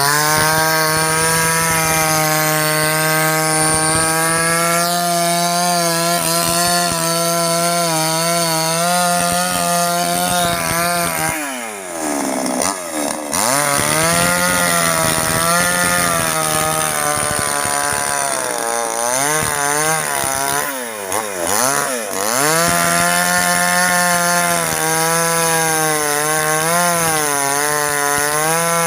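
Chainsaw running at high revs while cutting oil palm, its pitch wavering as the chain loads up in the cut. Twice the engine drops back briefly and then revs up again.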